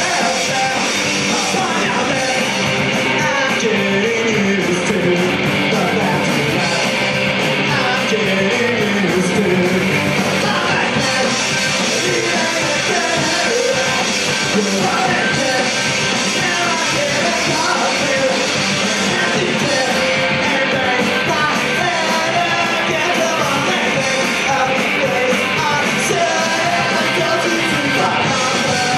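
Punk rock band playing live: electric guitars, bass and drums running steadily, with a singer yelling the vocals into the microphone.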